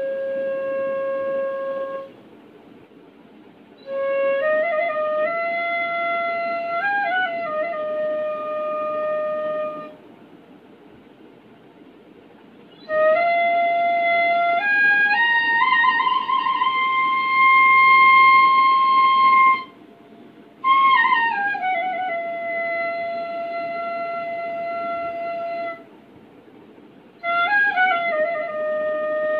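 Bansuri (Indian side-blown bamboo flute) played solo in slow phrases of long held notes joined by slides and ornaments, with short pauses between phrases. About halfway through, one phrase climbs step by step to a high note held for several seconds, then the next falls away again.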